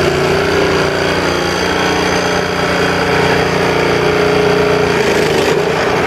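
Honda GX petrol engine on a Cara lawn scarifier running steadily, its tone shifting slightly about five seconds in.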